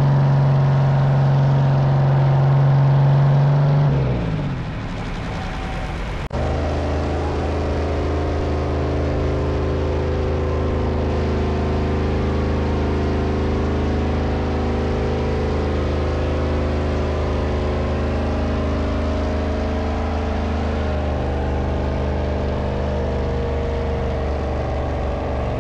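Diesel engine of a pulling tractor running hard under load as it drags the weight-transfer sled, holding a steady pitch. The note drops away about four seconds in, and a second steady full-power run follows from about six seconds on.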